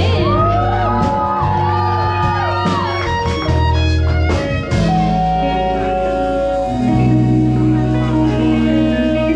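Live band playing amplified music on violin, electric guitars and electric bass. Sliding notes come over a heavy bass line in the first three seconds, then the band settles into longer held notes.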